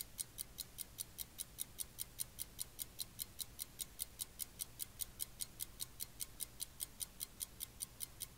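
Steady, fast ticking of a timepiece, about five even ticks a second, faint over a low hum.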